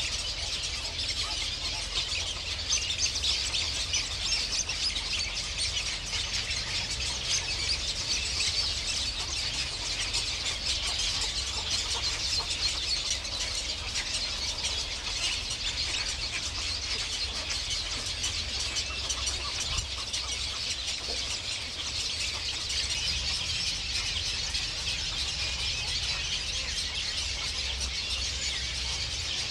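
Many small birds chirping and twittering at once in a dense, unbroken chorus, over a steady low rumble.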